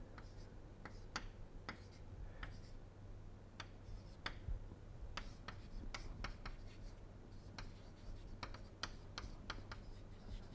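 Chalk writing on a chalkboard: a faint, irregular run of short taps and scratches as figures and letters are written.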